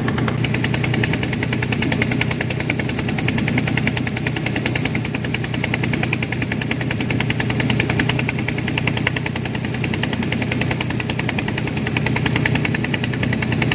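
Boat engine running steadily under way, a fast, even pulsing beat with a low hum beneath it, mixed with wind and water.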